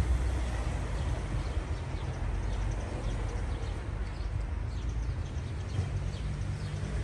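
Steady low rumble of outdoor street background noise, with faint short high ticks in the middle.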